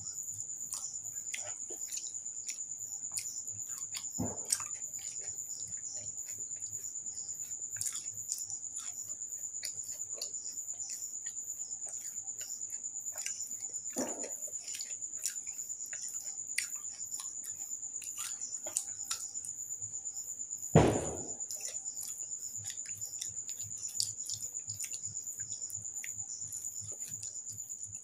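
Eating by hand: soft wet clicks and smacks of fingers mixing khichuri and of chewing. A steady high-pitched cricket trill runs throughout, and there is one dull thump about 21 seconds in.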